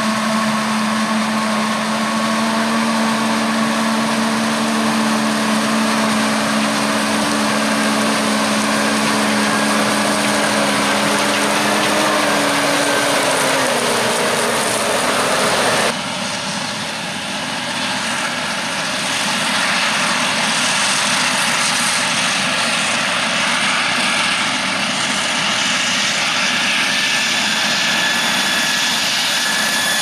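Claas Jaguar 970 self-propelled forage harvester chopping maize, running alongside a Fendt 939 Vario tractor hauling the trailer: a loud, steady machinery noise with a droning hum. The hum drops in pitch a little about 13 seconds in, and at about 16 seconds the sound changes abruptly to a more even, slightly quieter machine noise.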